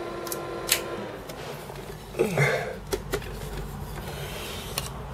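A running Amiga 4000's steady hum cuts off about a second in, its lowest tone sliding down as it winds down. This is followed by several sharp clicks and a scrape as a CPU card is handled and pulled.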